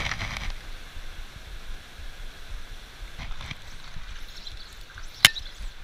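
Shallow stream water running over a cobble bed, with one sharp click about five seconds in.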